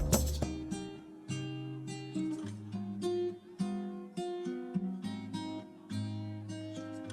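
Background music on acoustic guitar: strummed and plucked chords ringing out and fading one after another.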